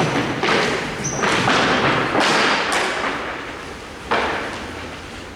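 Ice hockey play: several sharp thuds and cracks, as of a puck and sticks striking the boards and ice, over a noisy hiss.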